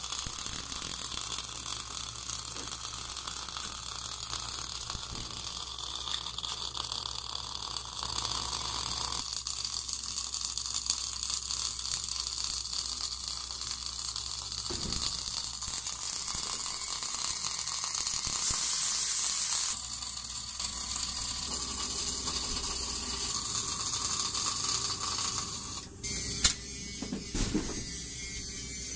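Automatic orbital pipe-welding machine's gas metal arc running on a steel pipe joint: a steady crackling hiss of the welding arc. About 26 seconds in it drops briefly, then a sharp click.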